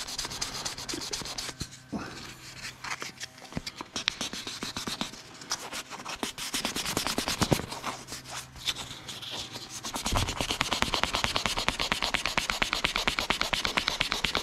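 Sandpaper scrubbed back and forth over a rubber bicycle inner tube, roughening the area around two small puncture holes to prepare it for a pre-glued patch. Quick rasping strokes that get faster and louder about ten seconds in.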